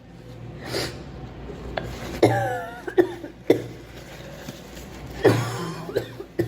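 A girl coughing and clearing her throat in a series of short, sudden coughs, the loudest about two seconds in and again about five seconds in.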